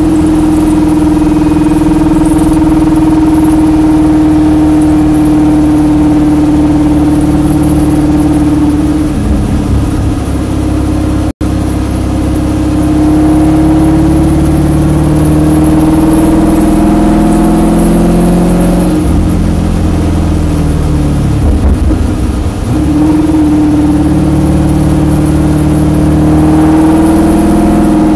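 Spec Corvette's V8 engine heard from inside the cockpit, running at low, fairly steady revs at slow speed. The revs dip and pick up again about a third of the way in and again about three quarters through, and the sound cuts out for a split second shortly after the first dip.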